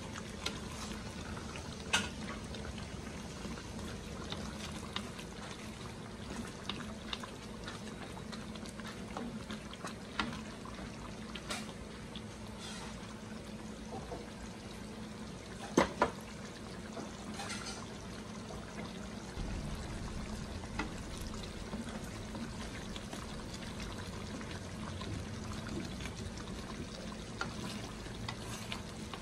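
Chicken pieces in coconut-milk sauce simmering in an aluminium pan, a steady bubbling, while a spatula stirs and clicks sharply against the pan a few times, the loudest click a little past halfway. A low steady hum runs underneath.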